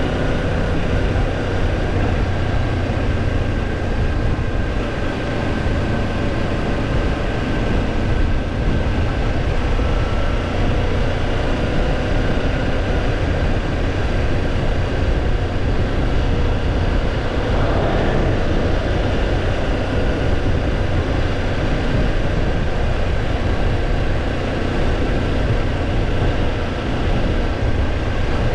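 Kawasaki Ninja 250 parallel-twin motorcycle engine running at a steady pace while being ridden, under a constant low rumble of wind and road noise.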